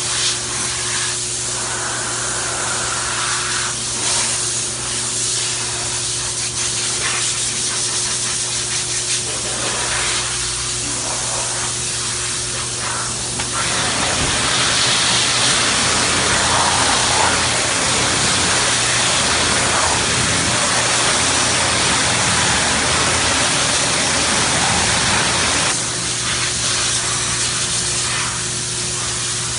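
Water spraying onto a car body panel: a continuous hiss over a constant low hum, growing louder and brighter from about halfway in for some twelve seconds, then easing back.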